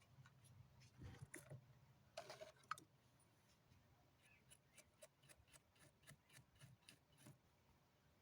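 Faint handling sounds of small handwork: a few knocks and scrapes, then a run of light clicks, about four a second, for a few seconds.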